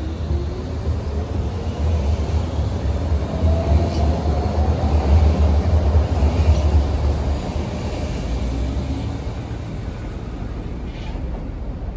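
Berlin U-Bahn train pulling out and running past along the platform. A low rumble of the cars swells and then eases off, over a whine that rises in pitch as the train gathers speed, with a few faint wheel clicks.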